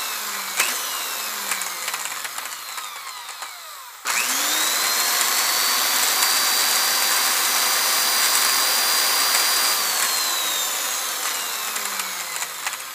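Quadcopter drone motors and propellers running with a high hissing buzz and a thin whine. About four seconds in, the sound jumps louder and the whine rises in pitch and holds steady. It falls away again about ten seconds in.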